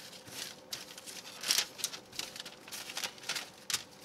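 Parchment paper crinkling and asparagus spears rustling as hands toss them on a lined sheet pan, in a string of short, uneven crinkles.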